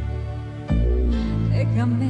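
Slow, tender ballad's instrumental accompaniment: sustained chords over a deep bass, with a new, louder chord struck less than a second in.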